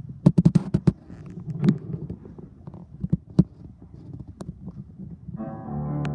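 A grand piano performance: scattered sharp knocks and taps, several close together in the first second, then about five seconds in, sustained piano chords ringing out.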